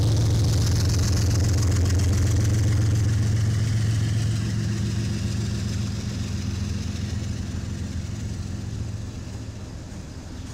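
Freight train passing: a diesel locomotive's engine drone, loud at first and fading away from about halfway through, over the steady rumble of loaded flatcars rolling by.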